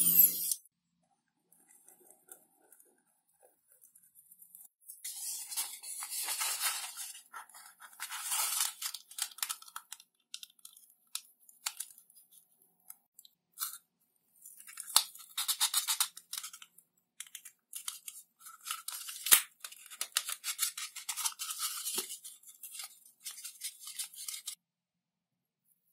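Paper tape pulled off, torn and rubbed down by hand onto a rolled tube of blue foam: bouts of scratchy rustling and tearing a few seconds long, with a few sharp clicks, between quiet pauses.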